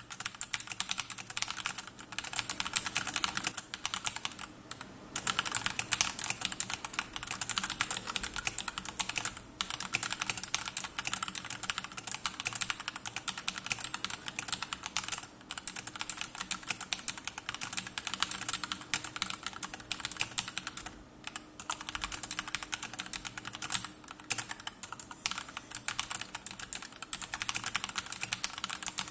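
Mechanical keyboard with SA-profile doubleshot PBT keycaps on Akko CS Matcha Green switches, typed on fast and continuously, with short pauses between runs of keystrokes.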